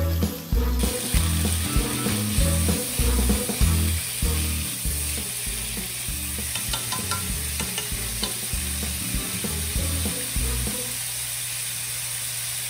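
Pork belly pieces sizzling steadily in an oiled nonstick wok as they are stir-fried and turned with a wooden spatula.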